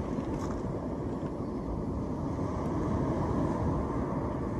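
Wind blowing across the microphone: a steady low rumble with no clear events.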